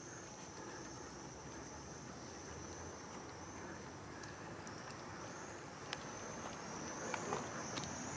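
Insects chirring in one steady high-pitched tone that wavers slightly, over a faint outdoor hum. A few small sharp clicks come near the end.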